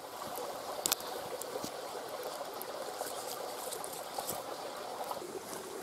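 Steady rush of a mountain river, with a few sharp snaps of damp branches being broken by hand for firewood. The loudest snap comes about a second in. The snaps sound slightly damp rather than a dry crack, because the wood is wet from lying by the river.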